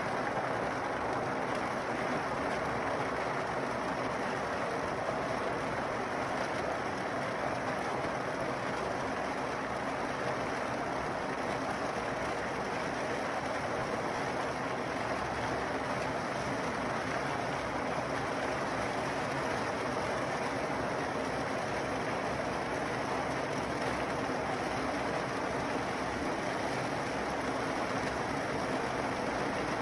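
Kadıoğlu 180ED walnut hulling machine running: fresh green walnuts churning in its drum with water spraying in, a steady, even rushing rattle over the machine's running noise as the hulls are stripped off.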